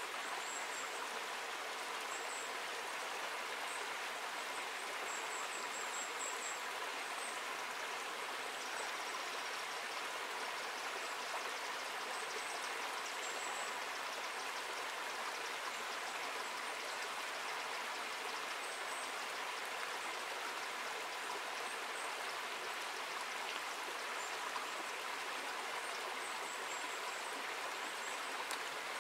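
Small forest stream running over stones, a steady water rush, with faint high chirps now and then.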